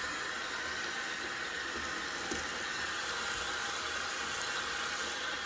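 Bathtub faucet running steadily, filling a jetted tub that is deep in bubble-bath foam.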